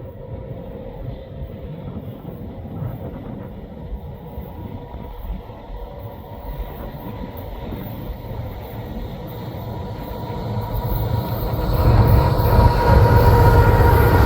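Canadian National freight train led by an ET44AC and a C44-9W diesel locomotive approaching. A low rumble with a faint steady tone builds slowly, then swells loud about twelve seconds in as the locomotives draw near.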